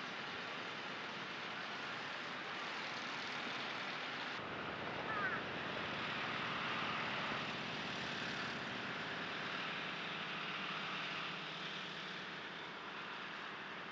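Steady distant vehicle noise picked up by a camera's built-in mic, changing abruptly about four seconds in and swelling slightly through the middle.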